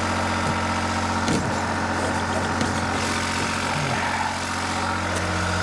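Portable generator's small engine running at a steady idle, an even low hum. A brief clank about a second and a half in.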